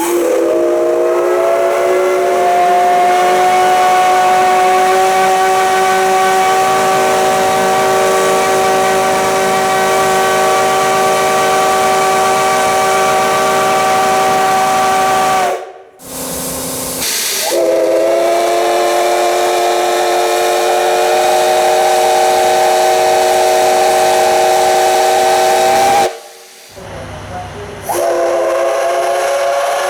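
Steam locomotive whistle sounding long blasts, several tones at once. The first lasts about fifteen seconds, the next about eight, and a third begins near the end. Each one slides up slightly in pitch as it opens, with abrupt breaks between them.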